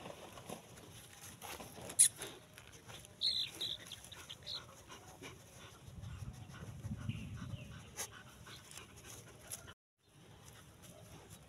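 A dog close by, with a few short high squeaks about three to four seconds in, then low snuffling breaths as its nose goes down beside the rabbit and hen. A sharp click about two seconds in is the loudest sound.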